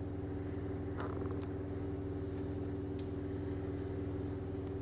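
Induction hob humming steadily under a stainless-steel pan, with a few faint clicks about a second in and again near three seconds.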